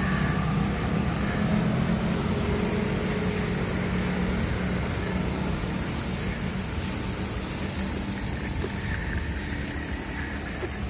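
Wind rushing over the microphone of a camera on a moving bicycle, mixed with the hum of motor scooter engines running just ahead, which fades over the first half. The overall sound slowly quietens.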